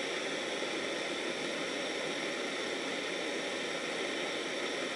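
Handheld gas torch burning with a steady, even hiss as it heats an enamel-coated bead held in its flame.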